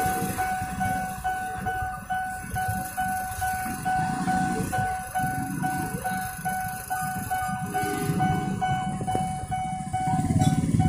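Railway level-crossing warning bell sounding a rapidly repeating electronic ding, the alarm that a commuter train is approaching. Motorcycle engines run close by, louder near the end.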